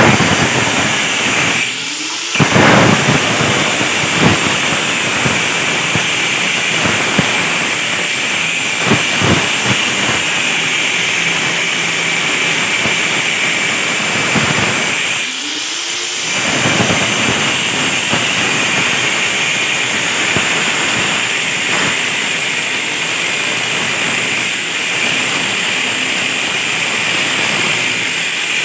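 Angle grinder cutting a groove into a brick wall for conduit: a steady, loud grinding rush with a high whine from the spinning disc. The sound briefly eases about 2 seconds in and again about 15 seconds in.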